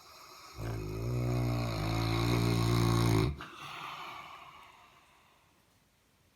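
Saint Bernard snoring: one loud, deep, pitched snore lasting almost three seconds that stops suddenly, followed by a softer breathy sound that fades away.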